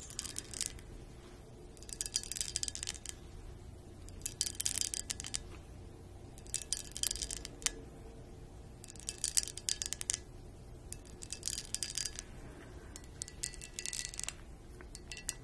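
Long acrylic fingernails tapping and clicking on a clear cut-crystal-patterned vessel, in short bursts of quick taps about every two seconds.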